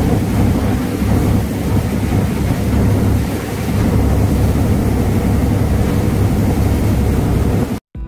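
Boat under way: engine running steadily with water rushing past and wind rumbling on the microphone. It cuts off abruptly near the end.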